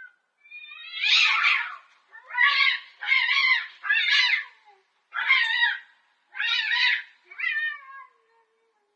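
A cat meowing repeatedly, about seven high-pitched meows in a row, the last ones shorter and fading.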